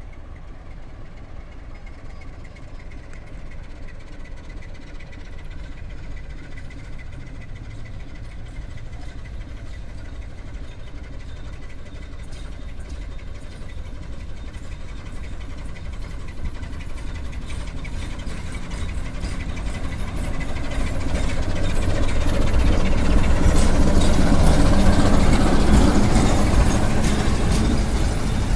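CFR Class 60 (060-DA) diesel-electric locomotive with its Sulzer V12 diesel engine, hauling passenger coaches and drawing near. Its low engine rumble grows steadily louder and is loudest about 24 seconds in as the locomotive passes close by, with wheel-on-rail clicking near the end.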